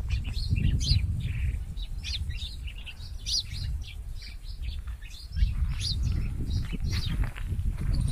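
Many small birds chirping and calling, short high chirps overlapping throughout, over a low rumble that drops away briefly past the middle.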